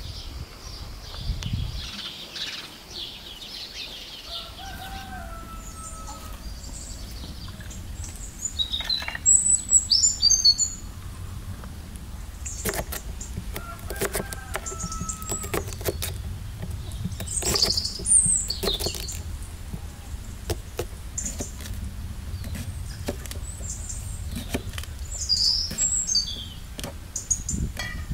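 A crinkle-cut knife knocking on a wooden chopping board as cucumber is cut, in sharp separate strokes from about twelve seconds in. Small birds chirp over it, loudest about ten seconds in.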